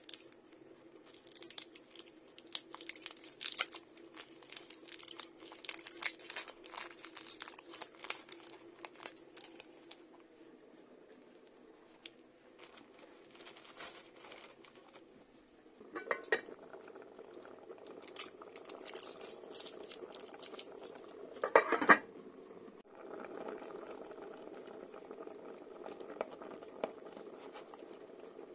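Foil wrapper of a stock cube crinkling as it is unwrapped by hand. It is followed by two sharp metal knocks on a steel pot, the loudest sounds. From there a cream sauce simmers in the pot, a steady bubbling.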